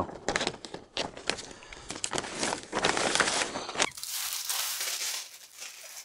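6-mil polyethylene moisture-barrier sheeting crinkling and crackling as it is handled and slit with a utility knife. About four seconds in this gives way to a steady hiss.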